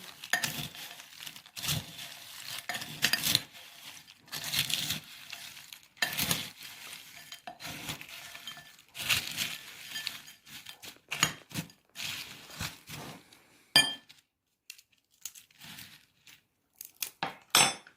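Dry, crisp snack mix of bhujia, potato chips and peanuts being stirred in a bowl with a spoon: irregular rustling crunch with clinks of the spoon on the bowl, a sharp clink about fourteen seconds in and another near the end, and a quieter stretch between them.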